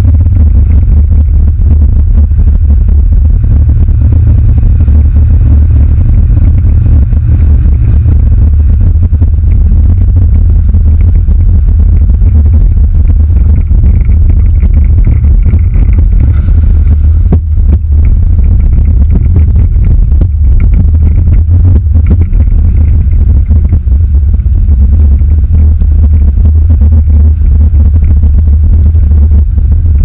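Chevrolet Silverado pickup driving on a snowy road, heard as a steady, heavy low rumble of road, engine and wind noise picked up by a camera mounted on the outside of the truck.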